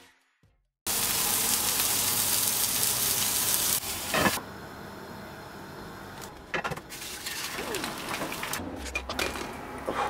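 Food sizzling in a frying pan. The sizzle starts abruptly after about a second of near silence, runs loud for about three seconds, then settles to a quieter hiss. Scattered clicks and knocks of kitchen utensils sound through the quieter part.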